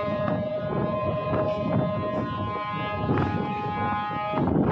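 Ship's horn sounding one long, steady blast that cuts off near the end, over wind noise and the low rumble of the ship.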